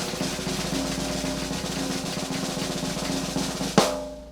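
Drum roll sound effect: a fast snare roll that ends in one sharp hit near the end, which rings briefly and fades.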